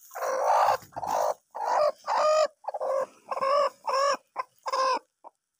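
Broody hen sitting on eggs, calling in a string of about eight short clucks as a hand reaches under her.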